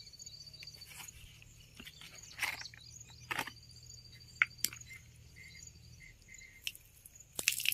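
Faint high insect trill in two short bursts, near the start and around the middle, with a few sharp clicks and light knocks of handling.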